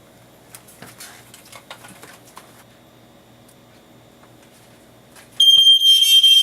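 A few faint handling clicks, then, about five seconds in, an old 1984 Sears smoke alarm starts sounding: a loud, steady, high-pitched alarm tone that goes on without a break.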